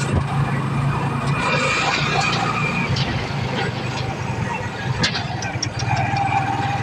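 Small motor vehicle's engine running at a steady, low hum while driving, with road and wind noise over it.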